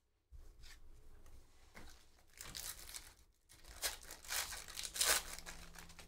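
Foil wrapper of a Panini Donruss basketball trading-card pack being torn open by hand, crinkling in irregular bursts, loudest about four to five seconds in.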